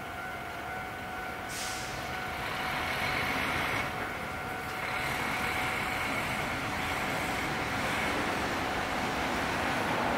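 Diesel locomotive engine running as the locomotive approaches with its freight train, growing steadily louder as it comes closer.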